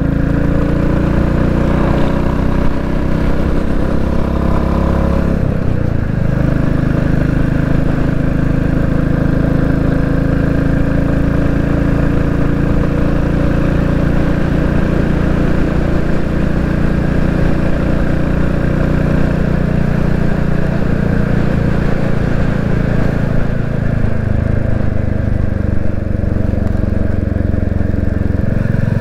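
Royal Enfield Classic 350's single-cylinder engine running under way, heard from on the bike. The engine note shifts about six seconds in and drops a few seconds before the end.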